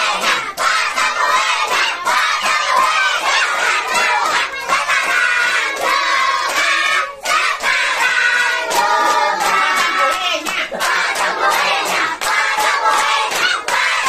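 A group of children shouting and calling out together, with hand claps mixed in and music underneath.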